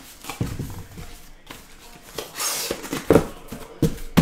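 Box cutter slitting the packing tape on a cardboard shipping case, with cardboard scraping, one longer rasp about two seconds in, and a few sharp knocks near the end.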